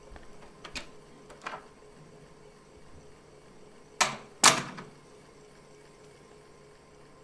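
A glass-paned wooden French door: a few light latch clicks as it is opened, then two loud knocks about half a second apart as it is shut.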